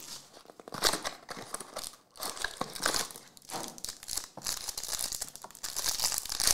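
Clear plastic wrapper on a pack of football trading cards crinkling and tearing as it is peeled open, in irregular crackles with a short pause about two seconds in.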